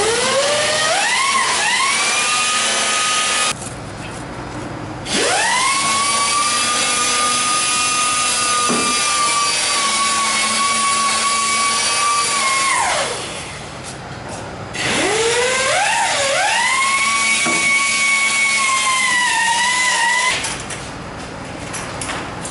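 A small power tool's motor whining three times, several seconds each. Each run spins up with a rising pitch, holds a steady high whine, and then winds down or cuts off.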